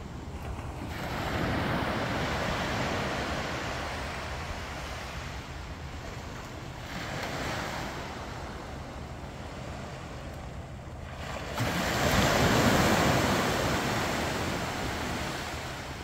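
Small waves breaking and washing up a flat sandy beach, the surf swelling and fading three times, with the loudest wash about three-quarters of the way through.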